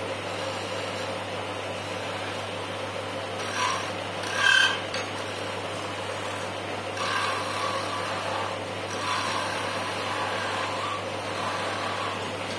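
Wood lathe running with a steady hum while a hand-held chisel scrapes and cuts a small wooden spindle. The cutting sound rises twice, briefly, around four seconds in, the second time with a sharp squealing edge, and grows steadier and louder again in the second half.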